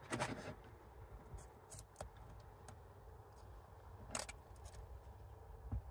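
Faint clicks and scrapes of an 18650 lithium-ion cell being pushed into a tight plastic cell-holder slot in a battery pack, with a sharper click about four seconds in.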